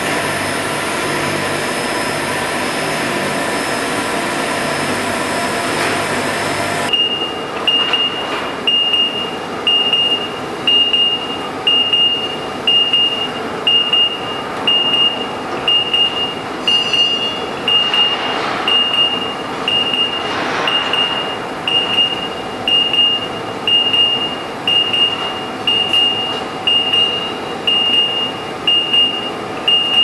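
Steady hum of heat-treatment furnace plant machinery with several steady tones. About seven seconds in it changes suddenly to a lower hum, over which a warning beeper gives a short high beep about once a second.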